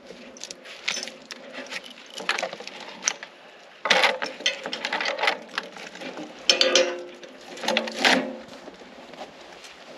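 Irregular metal clicking, rattling and scraping of tie-down gear as a log is being tied up, with louder clusters about four, six and a half, and eight seconds in.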